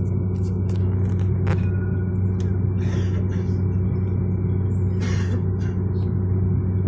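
Steady electric hum and rumble inside a moving tram, even in pitch and level, with a few light clicks and two short hisses about three and five seconds in.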